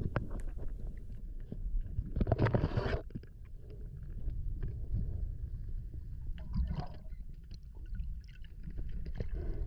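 Muffled underwater water noise heard through an action camera's waterproof housing as a freediver swims up through kelp: a steady low rumble with scattered faint clicks, and a louder rush of water about two seconds in.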